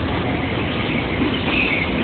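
Train running on the track: a steady, loud rumble and rush of wheels and running gear, with a higher tone coming in near the end.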